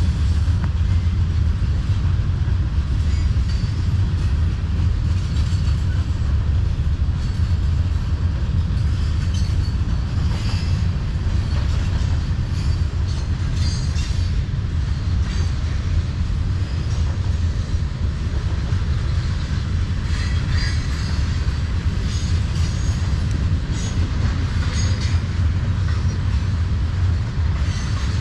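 Freight cars of a Norfolk Southern manifest train rolling past: a steady low rumble of wheels on rail, with scattered brief high squeaks and clicks.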